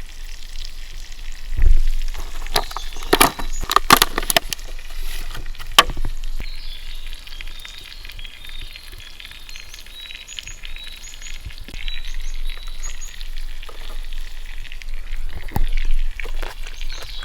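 Small birds chirping with short repeated notes, over a run of sharp cracks and knocks. A low thump comes about a second and a half in, the cracks cluster over the next few seconds, and another thump comes near the end.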